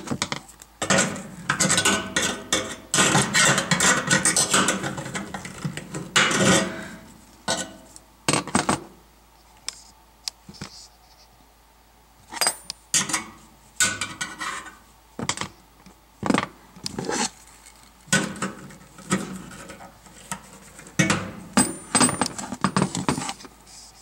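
Irregular metallic clinks, clanks and scraping of hand tools against the sheet-metal back panel of an electric range, busy at first, then sparse single clicks in the middle, and busier again near the end.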